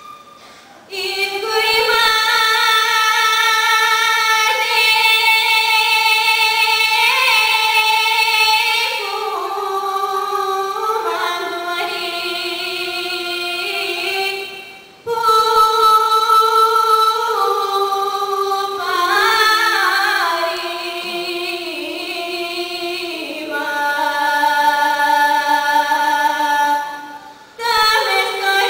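A woman's voice singing a Bulgarian folk song solo, in long held notes. The phrases break briefly about a second in, around the middle and near the end.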